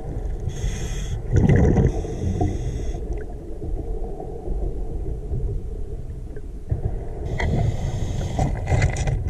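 Scuba diver's regulator breathing, heard underwater through a mask-mounted camera: two long bursts of exhaled bubbles, one in the first few seconds and one near the end, over a steady low underwater rumble.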